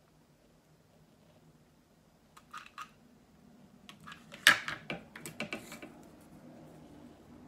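A hot glue gun and wooden popsicle sticks handled on a wooden tabletop: a few light clicks, then a sharp clack about four and a half seconds in as the glue gun is set down, followed by a short run of small clicks and clatter.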